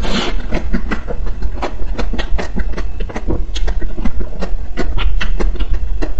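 Chewing a mouthful of frozen ice-cream bar: a dense run of irregular crunching clicks over a steady low rumble.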